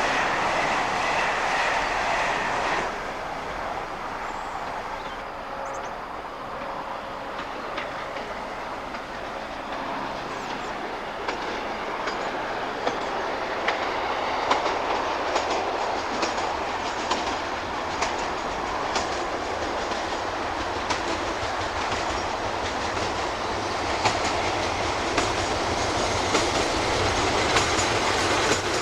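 Diesel-hauled passenger train running through the station, a steady rumble of wheels on rail with repeated clicks of the wheels over rail joints through the second half.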